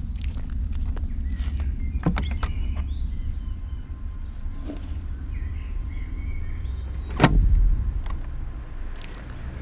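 Steady low rumble with scattered short bird chirps, broken by a sharp knock about two seconds in and a louder thump about seven seconds in.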